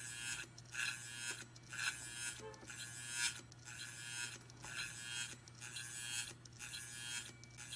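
Faulty Hitachi Ultrastar hard drive spinning with a scraping, knife-sharpening sound that repeats about every 0.8 seconds over a steady low hum. The platter appears to be tilted and catches as it turns, which the owner takes for damage in shipping.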